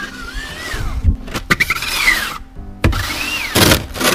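Snow shovel scraping snow across a plastic mat in about three pushing strokes. Each stroke is a scraping swish with a squeaky tone that rises and falls, and a sharp knock comes near the end.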